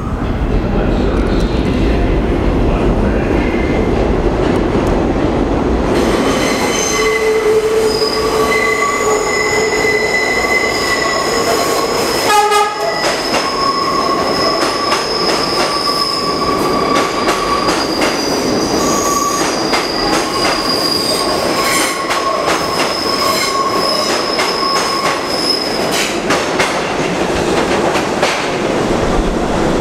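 Bombardier R62A subway train rolling through an underground station, its wheels squealing from the curve in steady high tones from about six seconds in until near the end, with rumble and clattering over the rails. One brief horn toot comes about twelve seconds in.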